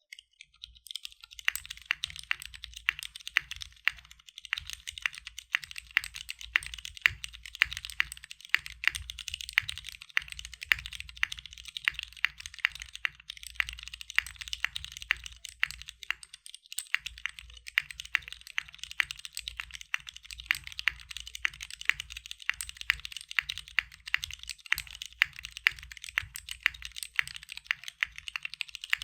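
Typing on a CW88 mechanical keyboard with Cherry MX Brown tactile switches on a polycarbonate plate, DCS keycaps and no foam in the case: a steady run of keystroke clacks, several a second, starting about a second in.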